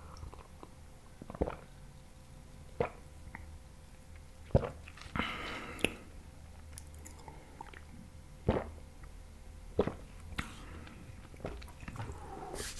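Close-miked mouth sounds of a man drinking cola from a glass mug: separate sharp gulping and swallowing clicks at uneven intervals, with a short noisy stretch about five seconds in.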